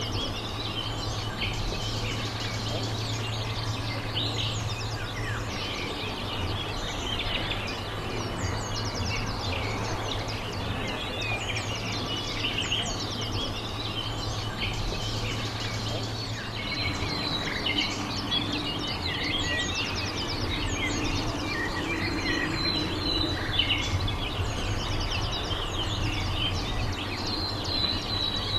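Small birds chirping and singing continuously, many short calls and trills overlapping, over a steady low hum.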